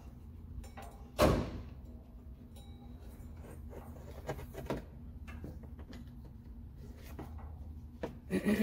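A ribbed rubber serpentine belt being worked off the engine's pulleys by hand, with faint rubbing and clicks, and one loud knock about a second in.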